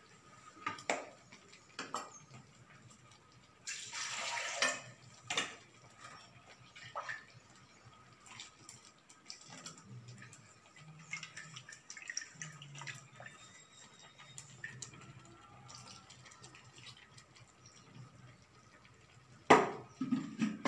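Steel ladle knocking against a cooking pan as moringa (drumstick) leaves are stirred into a pan of gravy, with liquid sloshing and dripping. Scattered single knocks, a longer rushing noise about four seconds in, and the loudest knocks near the end.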